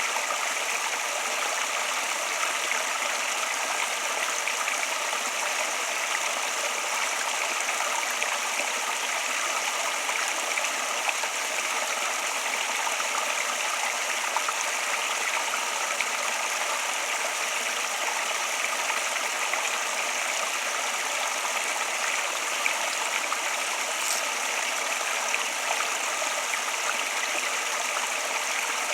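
Flowing water: a stream running, a steady rushing and trickling that holds even throughout.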